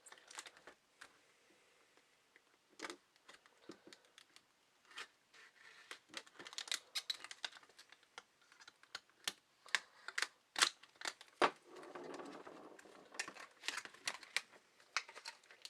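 Hands working at a small retail package to free a mini lantern stuck inside it: irregular sharp clicks and taps of plastic and cardboard, coming thicker in the second half, with a short rustle about twelve seconds in.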